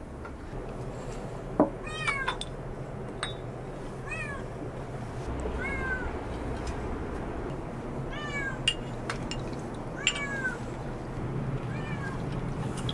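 A cat meowing repeatedly: short, high, arched mews about every two seconds. A few sharp clicks come between them, the loudest just after the start.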